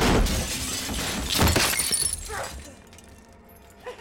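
Glass shattering: a sudden loud crash at the start, with breaking and falling glass going on for about two seconds (a second surge about a second and a half in), then dying away.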